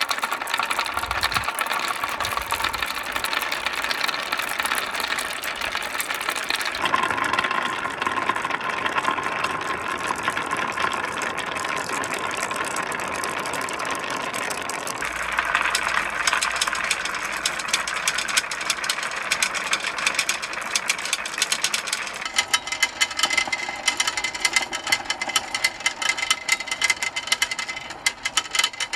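Many marbles rolling and clattering along a marble run track in a continuous rumbling rattle. The sound changes abruptly a few times as the marbles move onto different track sections. Near the end it becomes a rapid run of sharp clicks and clacks.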